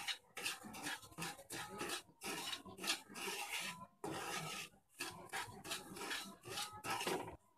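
Wooden spoon stirring and scraping dry semolina and sugar around a non-stick kadhai as it is lightly roasted in ghee: a run of short scraping strokes, two or three a second with brief pauses. It stops just before the end.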